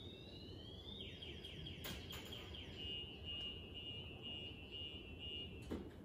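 Faint electronic alarm siren, most like a car alarm cycling through its tones: high rising whoops repeating about once a second, a run of quick falling chirps, then a steady warble lasting about three seconds. A couple of short clicks sound about two seconds in and again near the end.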